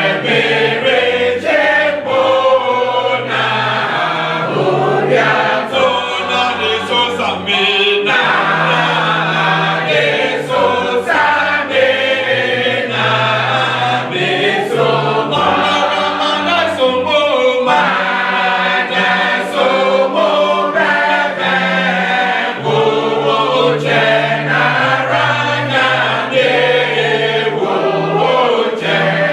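A choir singing, with sustained low notes that change every few seconds under the melody.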